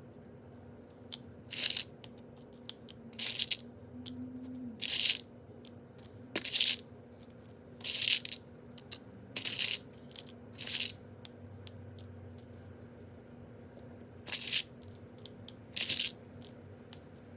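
Fossilized shark teeth rattling and clicking in short, crisp bursts as small handfuls are scooped and set down, about a dozen times at irregular intervals.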